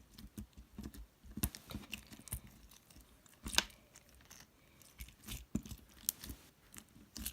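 Crunchy slime being squeezed and worked in the hands, giving off irregular crackles and pops.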